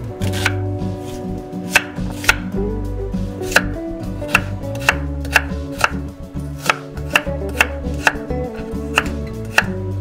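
Chef's knife chopping onion and then carrot on a wooden cutting board: a sharp knock of the blade on the board roughly every half second, over background music.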